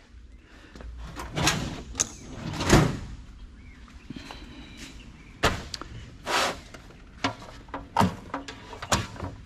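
Irregular knocks and clatters of computer parts being handled, pried and set down while an old desktop computer is stripped for scrap, about eight in all, the loudest a deeper thud near the third second.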